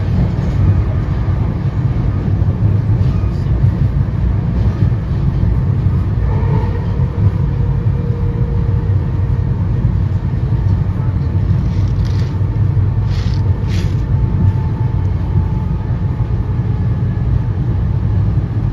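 Steady low rumble of an NJ Transit Comet II/IV passenger coach running at speed, heard from inside the car: wheels on rail and car-body noise. A faint tone rises over it about six seconds in, and a few light clicks come about two-thirds of the way through.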